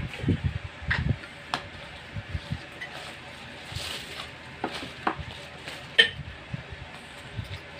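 A small knife and hands working through a bunch of taro (gabi) stalks and leaves: scattered snaps, clicks and rustles as leaves are trimmed off and stalks handled, with a few low thuds in the first second.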